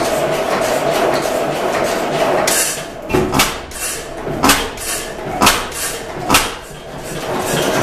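Pattin Brothers four-cycle oilfield engine running slowly, with a run of sharp firing beats about a second apart through the middle and a steady noise before and after.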